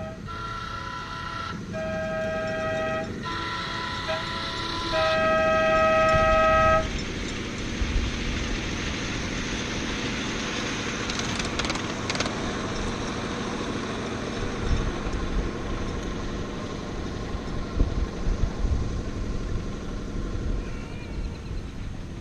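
Horns of two ride-on scale model trains trading blasts at a crossing: four chord-horn blasts in turn, alternating between two different sets of pitches, the last one the longest and loudest. After about seven seconds the horns stop and a steady rumble of the trains running follows, with a few light clicks.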